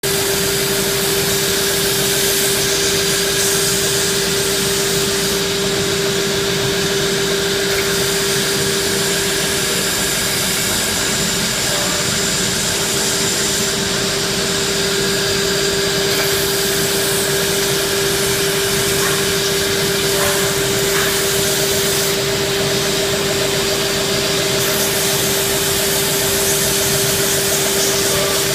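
Industrial wood sanding machine for chair parts running steadily, its motors and abrasive belts giving a constant mid-pitched hum over an even rushing noise.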